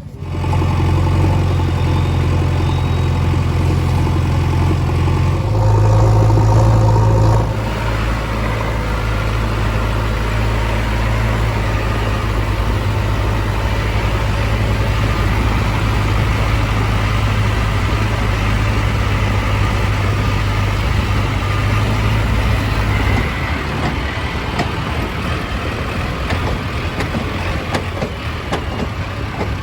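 Heavy diesel engine running steadily. It revs up louder for about two seconds some five seconds in, then settles back, and its note shifts again near the end.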